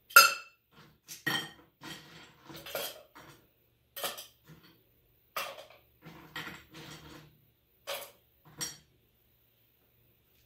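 Stainless steel cocktail shaker tins clinking and knocking as they are handled, about eight separate metallic knocks and rattles, the first the loudest, stopping about nine seconds in.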